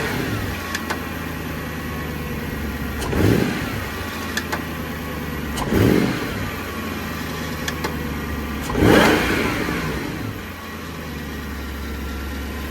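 Jaguar XKR's supercharged V8 idling, blipped three times so the revs rise and fall briefly about every three seconds. The cold-start tick-tock, which the owner suspects is belt jump, has gone away.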